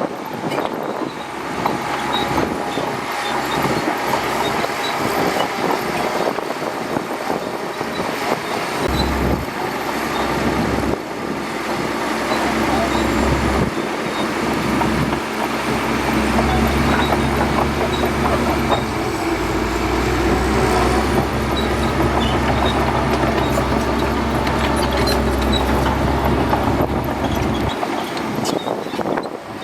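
Shantui DH17C2 bulldozer's diesel engine running with a steady low drone that grows louder about nine seconds in and again from about fifteen to twenty-eight seconds, over continuous clatter. People's voices are heard over it.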